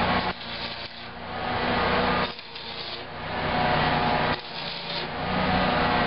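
Electric arc welding on the steel seam joining two steel shipping containers: a harsh crackling hiss in runs of about two seconds, each cutting off abruptly as the arc is broken, over a steady low hum.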